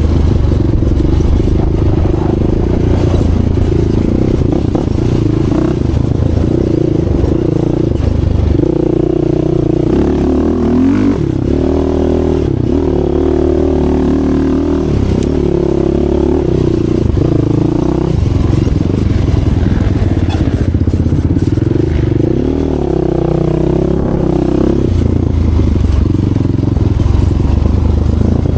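Racing ATV engine running hard, its pitch rising and falling as the throttle opens and closes.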